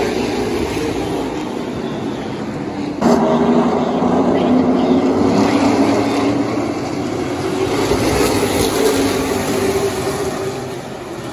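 A pack of pro stock race cars' engines running at racing speed, a loud steady drone of several engines together, which jumps sharply louder about three seconds in.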